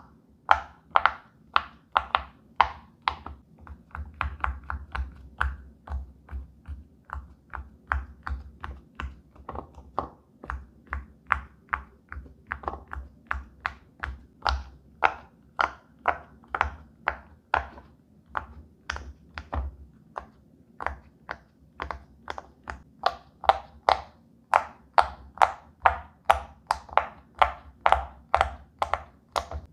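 Silicone pop-it fidget toy bubbles being pressed one after another by fingers, each giving a short sharp pop with a dull thud. The pops come at an even pace of about two or three a second.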